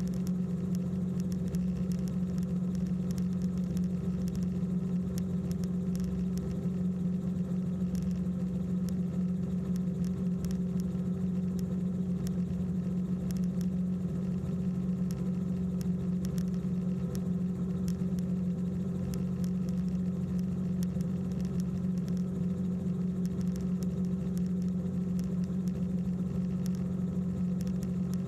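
Steady drone of a small aircraft's engine in flight, a low hum that holds one pitch without change.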